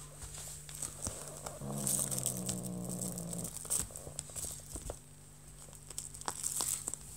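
British shorthair kitten growling low, one held growl of about two seconds starting a second and a half in, over scratchy rustling and clicks from the fabric play tunnel and feather toy.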